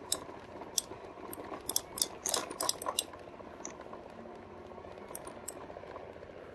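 Metallic clinking and rattling from a 2018 RadMini fat-tire electric bike rolling slowly over soft beach sand. A quick cluster of sharp clinks comes in the first three seconds and a few more later, over steady tyre noise.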